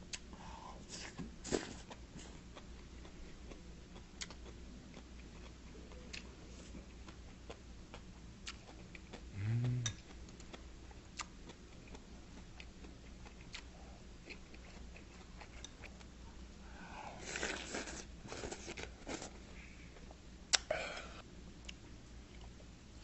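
A person chewing and eating food at close range, with scattered light clicks of chopsticks and spoon against dishes. A brief hummed "mm" comes about halfway through, and a louder stretch of crunching comes near the end.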